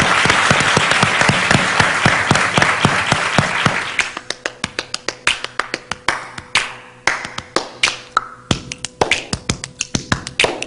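Studio audience applauding: a dense round of clapping that thins about four seconds in to scattered individual claps.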